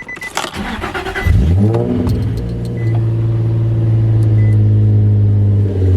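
Infiniti G35's 3.5-litre V6 cold-starting: about a second in it fires and the revs sweep up, then it settles into a loud, steady idle. A few short beeps sound before and just after it starts.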